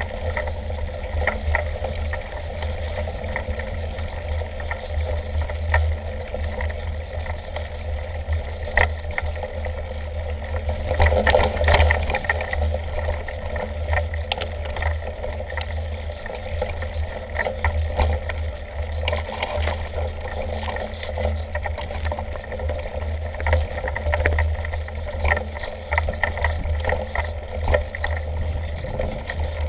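Mountain bike ridden over a rough grassy trail, heard from a handlebar-mounted camera: a steady low rumble with tyre noise and frequent rattles and clicks from the bike over bumps, busiest and loudest about eleven seconds in.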